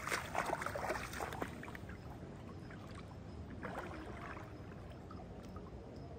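Footsteps in sandals splashing through shallow river water: a run of splashy steps over the first second and a half, then a shorter splash about four seconds in, with the river's faint steady flow behind.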